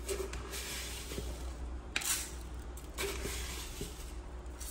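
Sugar being spooned out for the batter: a few gritty rustling scoops with light clinks of the spoon, the loudest scoop about two seconds in.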